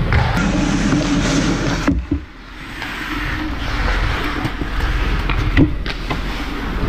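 Ice hockey play heard from a camera inside the goal: a steady scraping rush of skates on the ice, with sharp knocks about two seconds in and again about five and a half seconds in.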